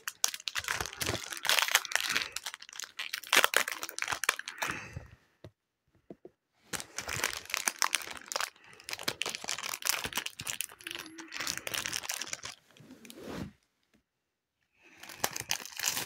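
Foil Pokémon booster pack wrapper crinkling and tearing as it is opened by hand, in bursts with a brief pause about five seconds in and another near the end.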